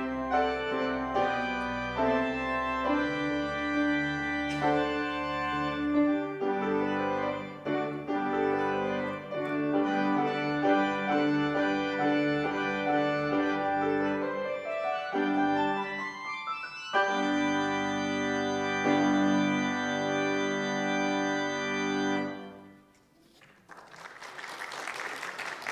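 Organ prelude: sustained chords under a melody, with a rising run about sixteen seconds in, ending on a held chord that fades about twenty-two seconds in. A short spell of clapping follows near the end.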